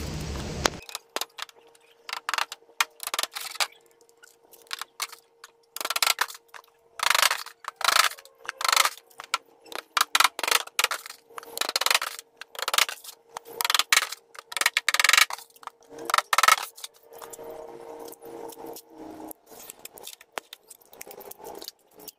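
Hammer driving small nails into a plywood panel on a wooden frame: a series of sharp metallic taps in irregular runs, the loudest and quickest through the middle, lighter taps near the start and end.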